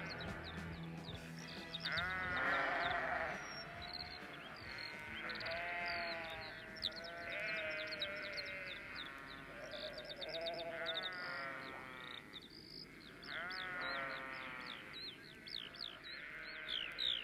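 Sheep bleating, about six drawn-out bleats a few seconds apart, with small birds chirping quickly and high above them. A low held music note fades out in the first second or so.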